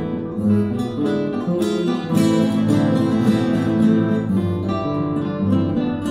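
Ensemble of seven nylon-string classical guitars playing a Spanish pasodoble together, a steady stream of plucked chords and notes.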